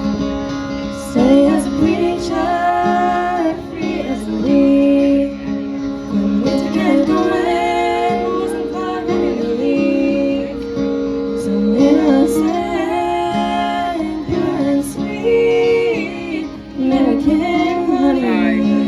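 Band music: guitar accompaniment with a woman singing a melody over it.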